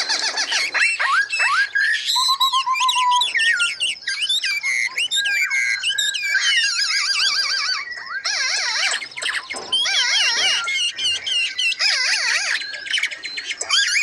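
Several caged songbirds singing at once, a dense chorus of overlapping whistled and warbling phrases. There is a quick trill about two seconds in, and rapidly wavering notes through the second half.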